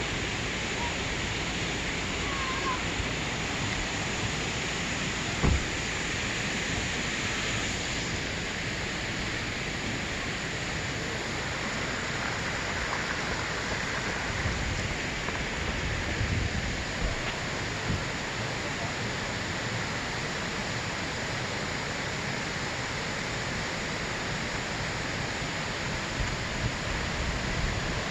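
Steady hiss of water, even and unbroken, with a single sharp knock about five seconds in and a few soft low thumps later on.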